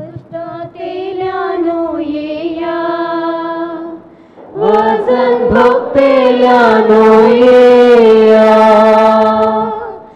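Slow Konkani funeral hymn sung with long held notes, in two phrases: a short break about four seconds in, and the second phrase louder.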